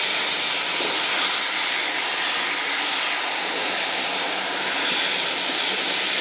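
Steady rushing hiss of a steam-hauled passenger train on the move, heard from an open carriage window. It is even throughout, with no separate beats.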